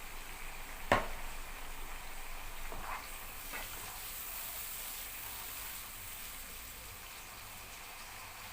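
A pot of rice cooking in pepper sauce, sizzling steadily on the stove. There is one sharp knock about a second in and a few fainter clinks around three seconds.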